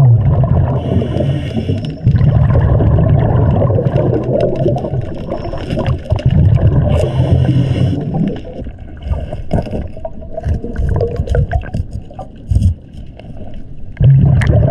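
Scuba regulator breathing heard underwater: loud bursts of the diver's exhaled bubbles, rumbling and gurgling, with short hisses between them. The second half is quieter until another burst of bubbles near the end.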